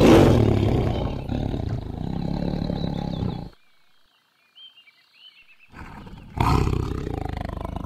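Tiger roaring: one long, loud roar that ends about three and a half seconds in, then after a short pause a second, lower growling call that starts about six seconds in and runs on. Faint bird chirps are heard in the pause.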